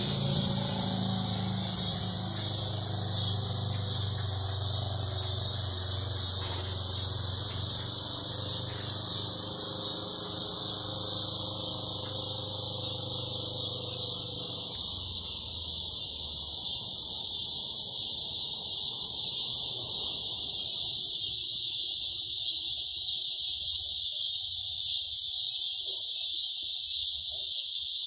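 A chorus of cicadas, a continuous high sound that grows somewhat louder in the second half. Under it, a low hum of several steady tones fades out about halfway through.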